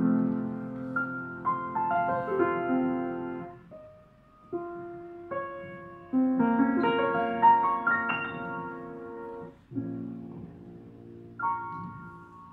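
Upright piano played solo, phrases of chords and melody broken by short pauses about four and ten seconds in, closing on a final chord struck near the end that rings out and fades.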